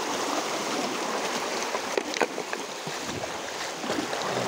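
Water of a shallow, rocky stream rushing steadily over stones, with two brief sharp sounds about two seconds in.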